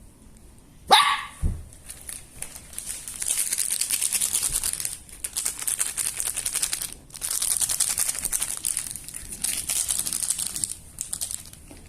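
A puppy's short yelp, falling in pitch, about a second in, then several seconds of rapid crinkling and crackling, like plastic being crumpled, with brief pauses.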